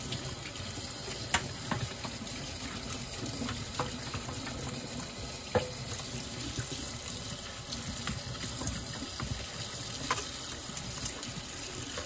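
Tap water running steadily into a stainless steel sink, with a few light knocks scattered through, the loudest about one and a half seconds in and again a little past halfway.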